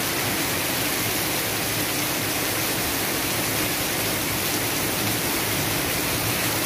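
Heavy rain pouring steadily onto corrugated roofing and tree leaves, a windless downpour.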